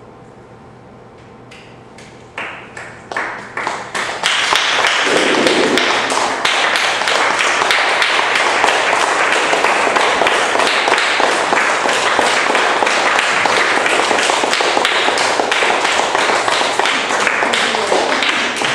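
Audience applause: a few scattered claps about two seconds in, swelling into full, steady applause at about four seconds.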